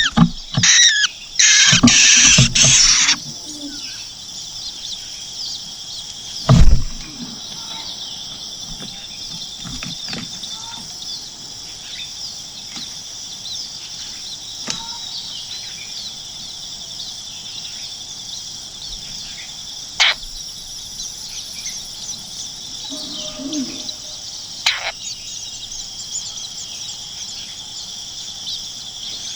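Nestling birds begging with loud, rapid high squealing chirps for the first three seconds, then a steady high-pitched insect chorus with scattered bird chirps. A single loud thump about six and a half seconds in, and a sharp click around twenty seconds in.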